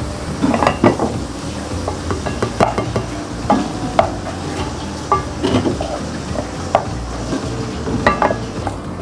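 A wooden spatula stirring and scraping tauco (fermented soybean paste) and ground spice paste around a coated pot, in irregular scrapes and knocks over a steady low sizzle of oil. The paste is being sautéed on turned-down heat.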